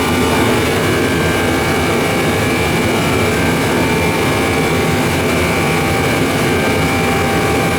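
A loud, steady machine noise: a constant rushing with several steady tones over it. It cuts off abruptly at the end.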